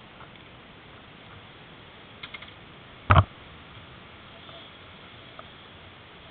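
A few light clicks, then one short, loud knock about three seconds in, over a steady hiss, picked up by a helmet-mounted camera's microphone while the rider moves about on the stationary motorcycle.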